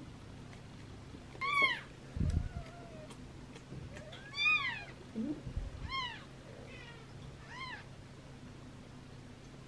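Three-day-old British Shorthair kitten mewing: about five short high-pitched cries, each rising and falling in pitch, as it is held and handled. Two brief low thuds come between the first cries.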